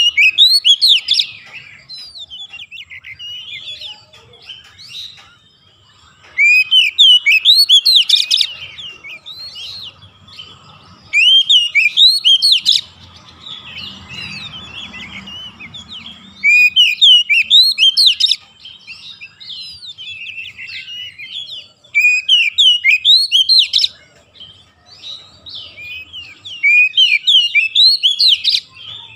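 Oriental magpie-robin singing: six loud bursts of fast, rising and falling whistled notes, each a second or two long and coming about every five seconds, with quieter twittering in between.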